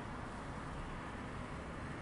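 Steady, even rushing outdoor noise of a city under a storm, with no thunderclap.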